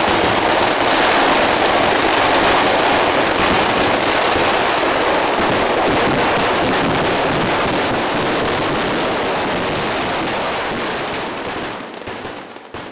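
Massed firecrackers of a ground-level fireworks barrage going off in a rapid, continuous stream of bangs and crackles that run together. The barrage dies down about a second before the end.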